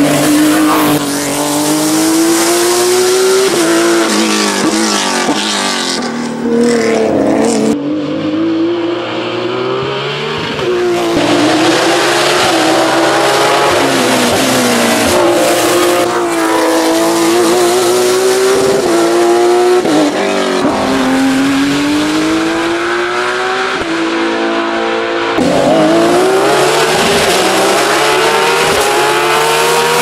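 Porsche 991.2 GT3 Cup race car's naturally aspirated 4.0-litre flat-six at full throttle, its pitch climbing as it revs out and dropping away, several times over.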